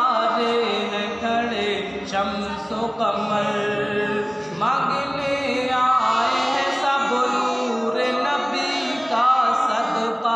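A group of young girls and a man singing a naat together, a devotional Islamic song with voices in chorus and no instruments.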